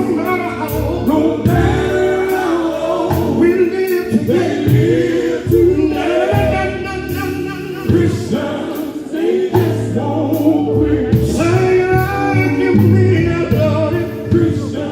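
Gospel music: a vocal group singing over instrumental backing, with a steady beat.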